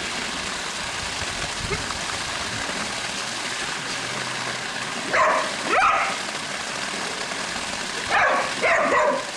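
Border collie barking at a pool's sheet waterfall: two pairs of short barks, about halfway through and near the end, over the steady splashing of water pouring into the pool.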